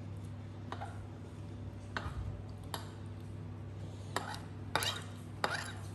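Metal spoon scraping and clicking as it scoops up crab sauce from the table. There are five or six short scrapes and clicks, starting about two seconds in, under a steady low hum.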